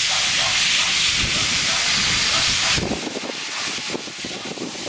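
Steam tank locomotive blowing steam out at track level in a loud, steady hiss that cuts off sharply about three seconds in, leaving a softer, uneven hiss.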